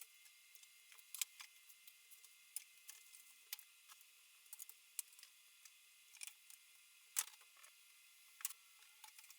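Faint, irregular light clicks and taps of small objects being handled, with the strongest knock about seven seconds in, over a quiet steady room hiss.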